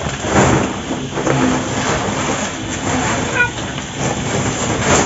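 Dried seaweed being stuffed and pressed down by hand into a woven plastic sack: a continuous crackling rustle of the dry, brittle fronds against the stiff sack, with scattered crunches.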